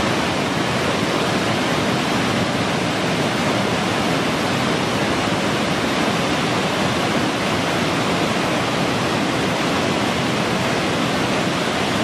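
Waterfall: a steady, even rush of water cascading over rock, with no change in level.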